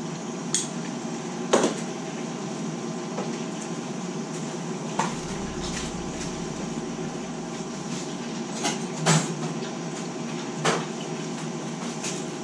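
Steady mechanical hum with several short knocks and clatters scattered through it, the loudest about a second and a half in and about nine seconds in.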